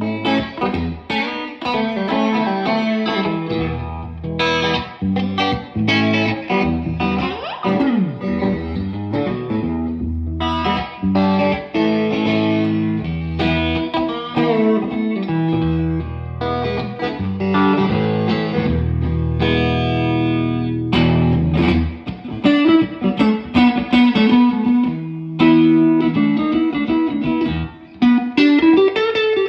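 PRS Silver Sky SE electric guitar played straight into a Fender Super-Sonic amp, mixing chords with single-note lines. String bends come about seven seconds in and again near the end.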